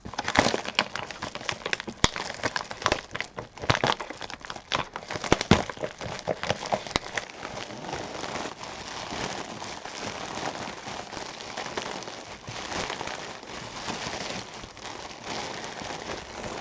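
Plastic packaging being torn open and handled, crinkling: sharp rips and crackles through the first several seconds, then steady continuous crinkling.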